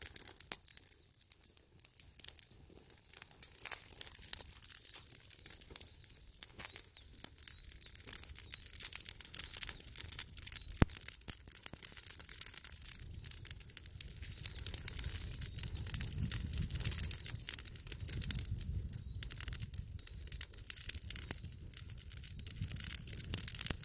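Dry leaves burning on a fabric swing seat, crackling with many small irregular pops and one sharper pop about eleven seconds in. A low rumble swells in the second half as the flames spread, and a bird chirps faintly now and then.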